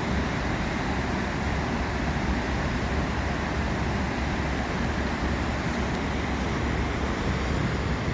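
Steady rushing of Cohoes Falls running in flood, a huge volume of water going over the falls, with a deep rumble under the even noise.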